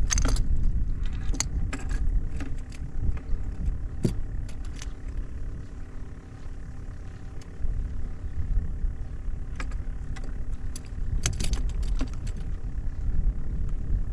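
Steady low rumble with scattered sharp clicks and light rattles, as of gear being handled, and a faint steady hum underneath.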